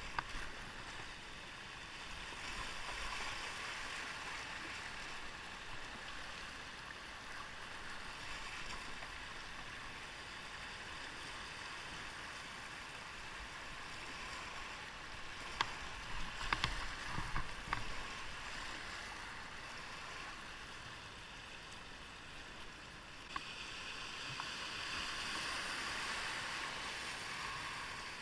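River water rushing through shallow riffles around an inflatable kayak, swelling louder near the start and again near the end. About two-thirds of the way through comes a short cluster of sharp knocks.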